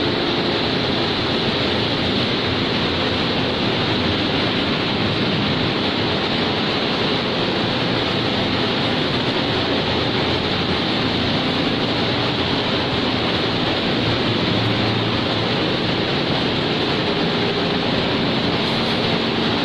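PP hollow sheet extrusion line running: a steady, even machine noise with a faint low hum in it and no distinct knocks or changes.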